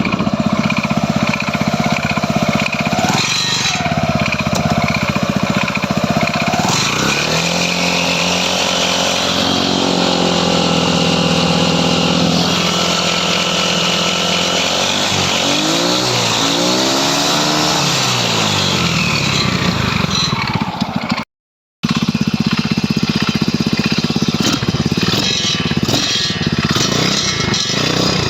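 Stels Capitan moped's small engine running after reassembly, revved up and back down in the middle, with a knocking throughout that the owner suspects comes from the starter's overrunning clutch.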